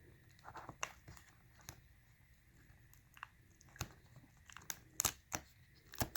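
Faint, scattered sharp clicks and crinkles of the small piece of adhesive tape over a laptop display's ribbon-cable connector being peeled back, and of fingers handling the panel and cable. The loudest clicks come a little after five seconds in.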